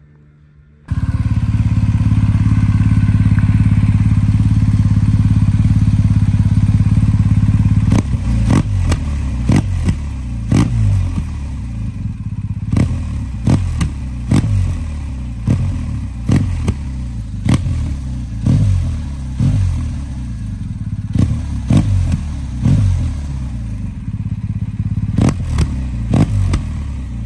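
BMW R1250 GS 1254 cc boxer twin through the stock muffler with the exhaust valve open and the catalytic converter removed from the headers. It starts running about a second in and runs steadily and loud until about eight seconds, then settles lower and is blipped over and over, about one or two revs a second, each blip with a sharp crack.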